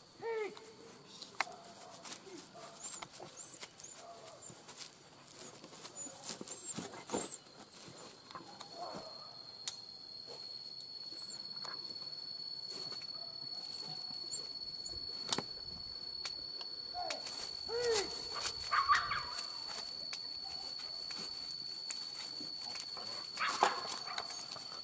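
Hunting dogs barking on and off, in short calls that come in clusters near the start, about two-thirds of the way through and near the end, over a steady high-pitched whine.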